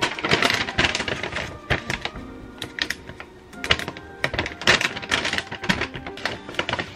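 Packaging pouches crinkling and crackling as they are handled and a resealable protein powder pouch is opened, in bursts of sharp crackles. Background music plays underneath.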